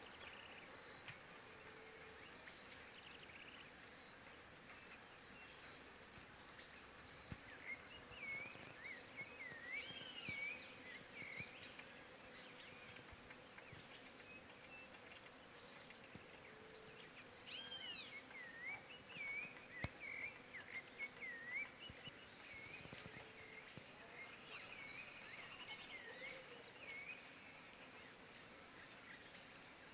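A steady, high-pitched insect drone, with a rufous-bellied thrush (sabiá-laranjeira) singing short warbled phrases every few seconds, mostly in the middle and near the end.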